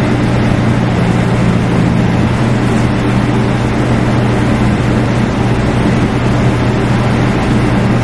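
A steady hum with a strong hiss, even and unchanging throughout.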